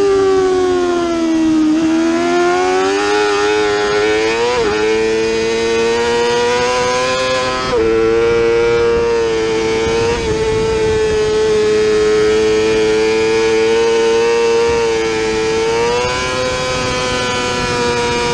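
Yamaha R6 inline-four engine screaming at high revs under hard acceleration, with wind rush. The pitch sags for the first two seconds, climbs, and falls sharply at two upshifts about four and a half and seven and a half seconds in, then holds a nearly steady high wail that rises a little near the end.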